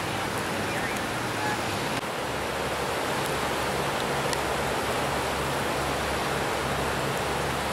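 Steady, even rushing noise of flash-flood water and rain running across pavement.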